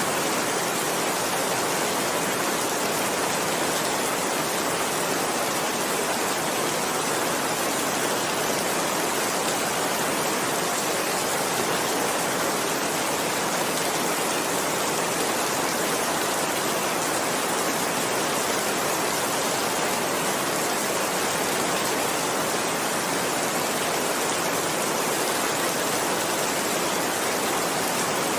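Heavy rain falling steadily: a dense, even hiss with no pauses or single drops standing out.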